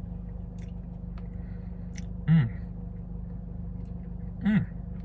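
A man eating a spoonful of mint brownie Blizzard ice cream, with faint mouth and spoon clicks. He gives two short "mmm" hums of enjoyment that fall in pitch, about two seconds apart. A steady low hum runs underneath.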